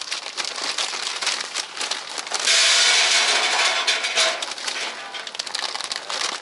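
Charcoal briquettes poured from a bag into a small charcoal grill's bowl, clattering and rattling. The loudest pour comes about two and a half seconds in and lasts nearly two seconds, with scattered clicks of briquettes before and after.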